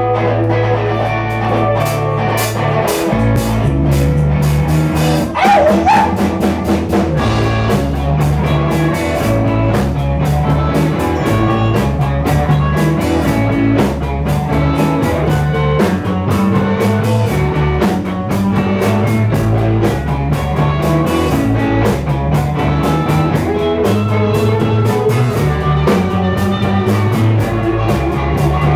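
Live blues-rock band playing: two electric guitars over a repeating electric bass line and a drum kit keeping a steady driving beat.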